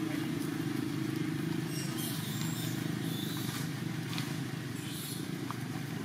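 Steady low engine drone of a motor vehicle running, with a few faint ticks about two and four seconds in.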